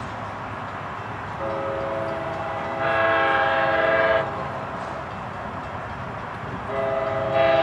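Approaching train's locomotive air horn sounding a chord of several notes: one long blast starting about a second and a half in and lasting about three seconds, then a second blast beginning near the end.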